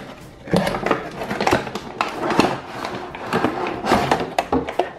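Cardboard toy box and paper instruction sheet being handled: irregular rustling, crinkling and light knocks, several a second.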